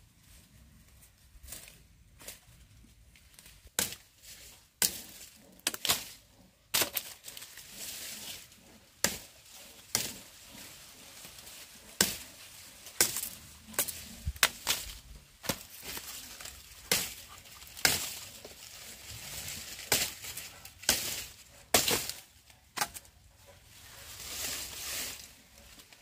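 A blade chopping sugarcane: sharp, irregular chops, roughly one every second or two, with rustling between them.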